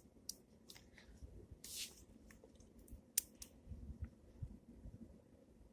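Faint small handling sounds as glue is squeezed into a bowl of slime mix: scattered light clicks, a short hiss about two seconds in, and a few soft knocks.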